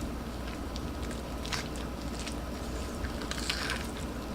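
Soft handling noises of rotisserie chicken being pulled apart by hand: faint wet tearing with a few light clicks, a sharper one about a second and a half in and a short rustle near the end, over a steady low hum.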